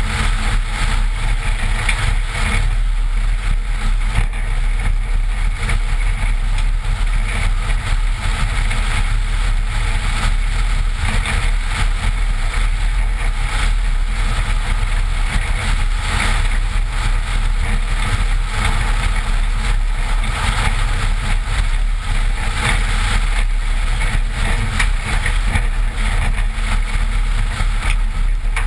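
Steady driving noise of a 1986 Toyota pickup moving fast on a dirt road, picked up by a camera mounted on the outside of the body by the front wheel: tyres on the dirt and wind over the camera make a constant low rumble.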